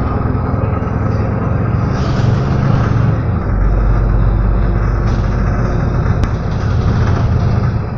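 City street traffic: motor vehicle engines running close by, with a deeper low rumble setting in about three and a half seconds in.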